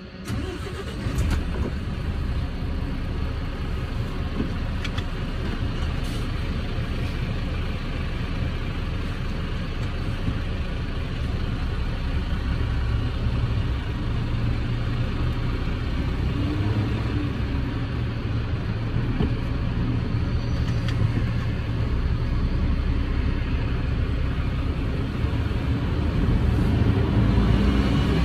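Vehicle engine running with a steady low rumble that picks up shortly after the start, growing heavier midway and again near the end as the vehicle moves off.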